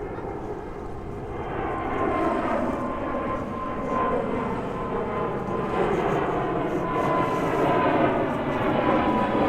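Jet airliner flying low overhead near Haneda Airport: a steady engine roar with a thin whine, growing louder about a second and a half in and staying loud.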